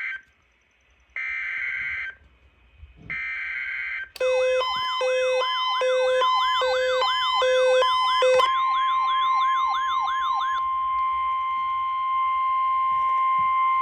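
Emergency Alert System data bursts: two short, screechy bursts of modem-like tones, the end-of-message signal of a weather radio warning. About four seconds in, a warbling electronic siren-like alert with rapid beeps starts. About eight seconds in, the steady 1050 Hz NOAA Weather Radio warning alarm tone takes over and holds, announcing the next warning.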